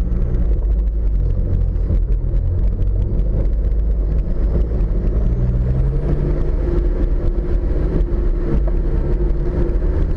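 Off-road vehicle driving over a rough dirt track: a steady engine hum whose pitch shifts a little, with frequent small knocks and rattles from the bumps.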